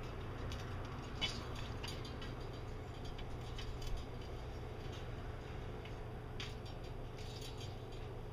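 Scattered light clicks and rattles of metal enclosure poles and corner connectors being handled and fitted, over a steady low rumble.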